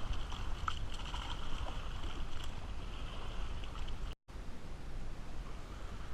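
Outdoor waterside ambience: wind rumbling on the microphone under a steady high hiss. The sound cuts out for an instant about four seconds in, and comes back without the high hiss.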